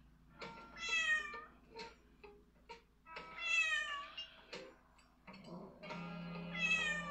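A cat meowing three times from the television, each meow falling in pitch, over film music.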